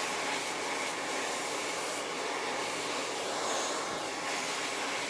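Handheld hair dryer blowing steadily, with an even whoosh that holds the same pitch throughout.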